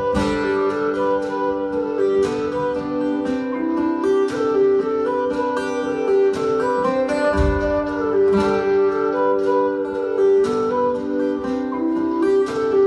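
Live folk tune: bagpipes play the melody over their steady drones, with acoustic guitar strumming beneath. A low drum thump comes at about seven and a half seconds.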